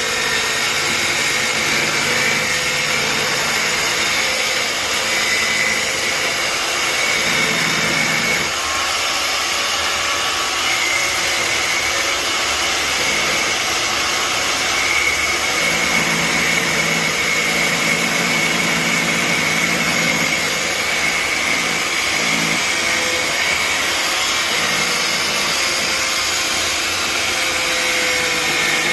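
An electric motor running steadily and loudly, with a faint high whine.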